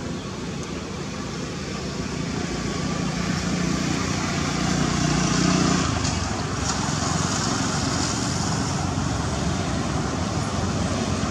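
Road traffic noise: a motor vehicle passing, its rumble building to a peak about five seconds in, then a steady rush of traffic.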